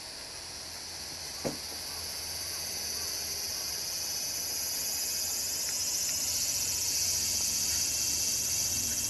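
Steady high-pitched chorus of insects chirring, gradually growing louder, with a single short knock about one and a half seconds in.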